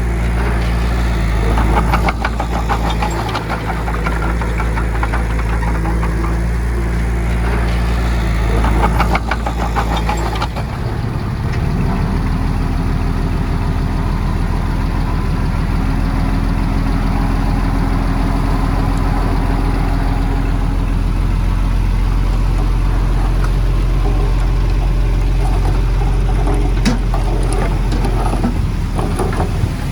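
Heavy earthmoving machinery's diesel engine running steadily, with rattling clatter twice in the first ten seconds. About ten seconds in, the engine note changes and then holds steady again.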